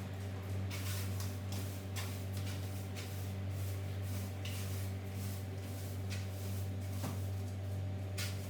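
A steady low electrical hum runs under short swishing and rustling noises that come every second or so.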